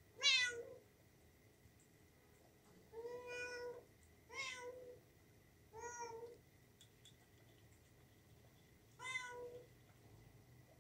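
Kitten meowing five times: short high-pitched calls a second or more apart, the first and loudest just after the start, falling in pitch.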